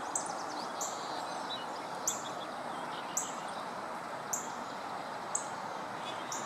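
A bird repeating a short, high chirp about once a second over a steady background hiss.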